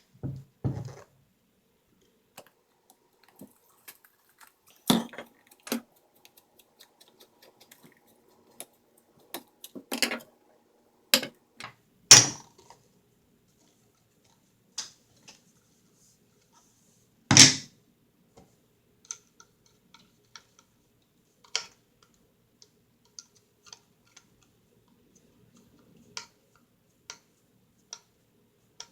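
Scattered clicks, taps and knocks of steel rifle parts being handled and worked loose while an FN FAL lower receiver is taken apart, with two louder knocks near the middle.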